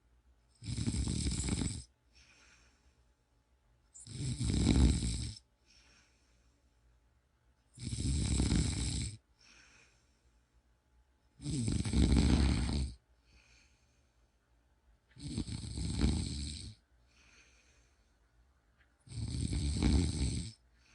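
Steady, rhythmic snoring: six loud snores, one about every four seconds, each lasting over a second, with a faint breath between them.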